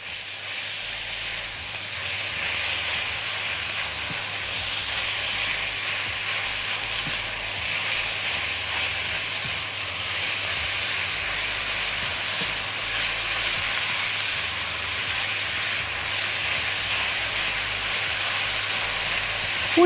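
Minced meat with chopped onion, carrot and celery sizzling steadily in ghee in a hot frying pan as it is stirred with a silicone spatula.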